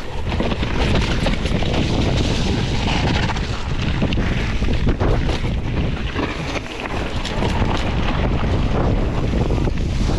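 Wind buffeting the microphone as a mountain bike rides fast over a dirt and gravel trail. Under it run a steady rumble of tyres on the ground and frequent clicks and knocks of the bike rattling over bumps.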